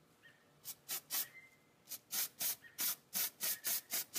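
Aerosol spray paint can sprayed in quick short puffs, about three hisses a second, with a couple of brief pauses in the first half.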